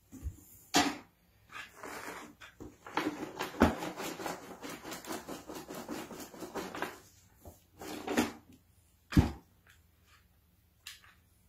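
Repotting handling sounds: rustling and scraping of potting soil and the plant's leaves while the plant is set into a plastic pot and the soil is pressed down around it, with three sharp knocks against the pot.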